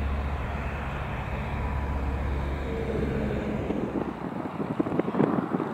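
Single-engine propeller light aircraft running in flight with a steady low drone; from about four seconds in it gives way to rough, crackling wind noise on the microphone.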